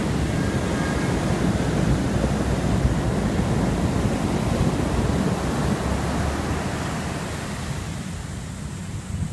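Ocean surf breaking and washing up a beach, a steady loud rush with wind buffeting the microphone. It eases off somewhat near the end.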